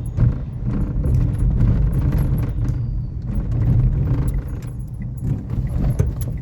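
Renault Kiger's dashboard rattling inside the cabin while driving over a slightly rough road: rapid, irregular clicking and knocking, the 'kat kat kat kat' the owner compares to a tempo, over the car's low road rumble. The owner says it is all dashboard noise, not noise from outside: loose or badly fitted dashboard trim.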